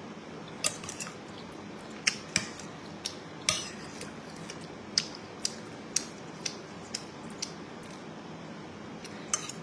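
Metal fork and spoon clinking against a ceramic bowl while stirring and scooping food: about a dozen sharp, irregular clinks over a steady low hum.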